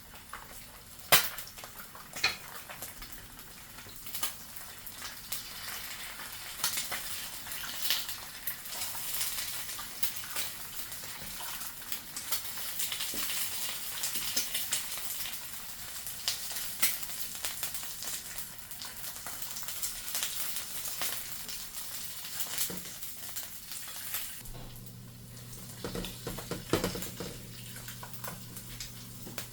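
Food sizzling in a frying pan, with sharp clicks and scrapes of a utensil against the pan. A steady low hum comes in about five seconds before the end.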